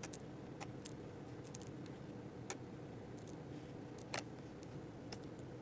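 Light, scattered clicks of small passenger meeples being set down one by one on a cardboard game board, the sharpest about four seconds in, over a faint steady room hum.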